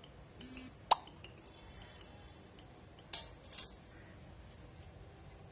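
Small kitchen handling sounds as sesame oil goes into a kadai: one sharp plop about a second in, then two brief scuffs about three seconds in.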